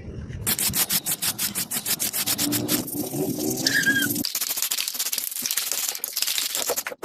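Rapid, evenly spaced metal-on-metal strikes, about six a second, as in forging steel under a power hammer, giving way to a denser, harsher metallic noise. A short bird chirp is heard about halfway through.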